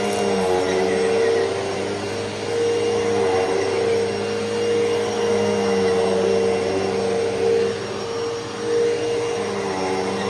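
Hoover Elite Rewind upright vacuum cleaner running while vacuuming: a steady motor hum and airflow, with pitch and loudness wavering slightly.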